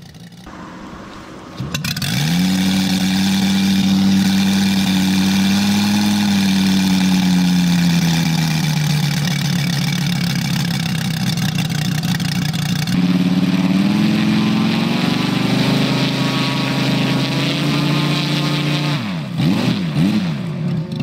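Moki R400 air-cooled five-cylinder radial engine of a large RC model aircraft running with a beefy sound, its propeller spinning. It comes in abruptly about two seconds in and holds a steady note that rises and falls slightly. It gives a few quick throttle blips near the end.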